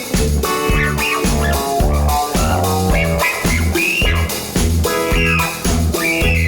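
Background music: a guitar-led rock track with bass and a steady beat.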